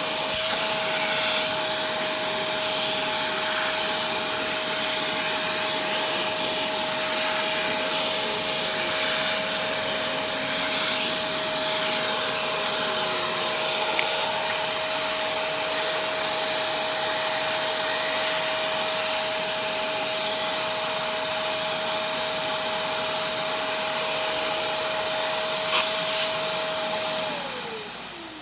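Shark vacuum cleaner running steadily with a high, even motor whine while vacuuming dirt off a hand vac, with a couple of brief knocks. Near the end it is switched off and the whine falls in pitch as the motor spins down.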